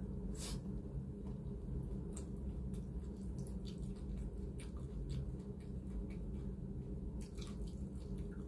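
Eating sounds: chewing with soft wet smacks and small mouth clicks at irregular moments as food is taken by hand and chewed, over a steady low hum.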